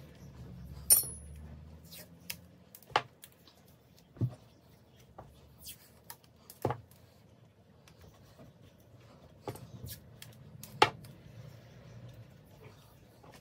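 Scattered metallic clicks and clinks as turbocharger parts and small hand tools are handled and set down on a workbench: about eight sharp taps, the loudest a short ringing ping about a second in.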